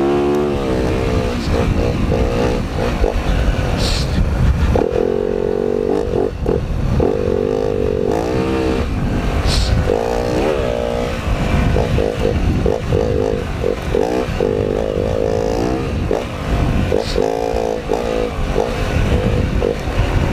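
Four-stroke dirt bike engine riding at low speed, its revs rising and falling again and again as the clutch is pulled in and the throttle blipped. A few sharp clicks are mixed in.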